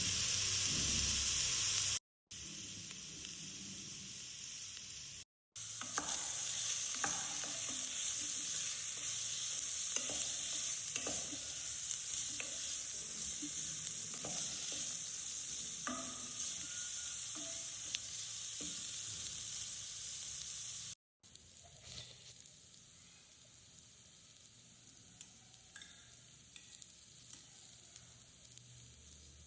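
Food sizzling in hot oil in a pan while it is stirred, with short ticks and scrapes of the spoon. The sizzle is broken by a few brief silent cuts, and after about 21 s it drops to a much quieter hiss with scattered ticks.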